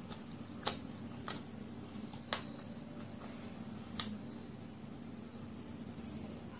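Close-miked eating sounds: a few sharp crunches and clicks as fried chicken lollipops are bitten and chewed, the loudest about four seconds in. Under them runs a steady high-pitched whine with a low hum.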